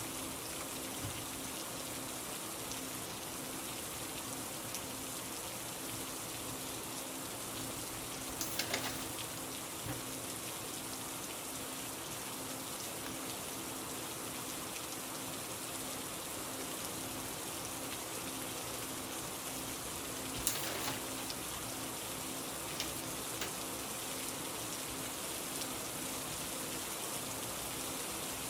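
Steady rain, an even hiss of falling drops, with a faint low hum beneath it. A few short clicks or taps stand out about eight seconds in and again about twenty seconds in.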